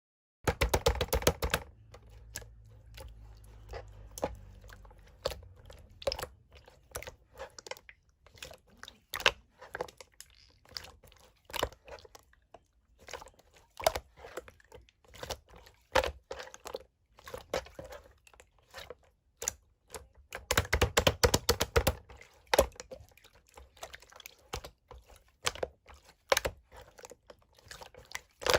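Clear slime being played with by hand, pressed and poked so that it gives irregular sharp clicks and pops. There are dense runs of rapid clicking just after the start and again about twenty seconds in.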